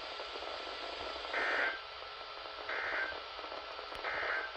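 NOAA Weather Radio SAME end-of-message code: three short bursts of warbling digital data tones, about a second apart, over steady radio static hiss. The bursts mark the end of the alert message.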